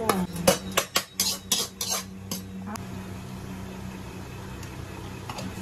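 A steel spoon clinking and scraping on a steel plate as it stirs dry roasted dals and peanuts: a quick run of sharp clinks and rattles over the first two and a half seconds, then only a low steady hum.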